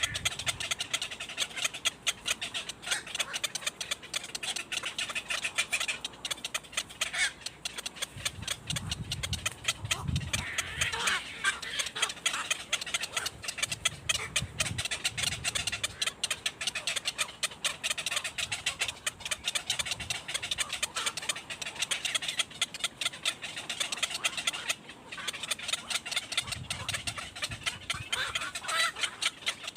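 Baby birds cheeping rapidly and without pause in a dense, high chatter, with a few short low rumbles in between.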